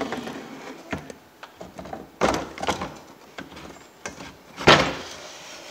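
Knocks, clunks and scraping as a Tanaka 27cc two-stroke drill engine, just unbolted, is handled and worked loose from its drill frame, with two louder knocks, one a little past two seconds in and one near the end.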